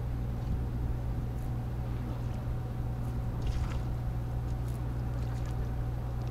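A steady low mechanical hum under outdoor background noise, with a few faint scattered ticks.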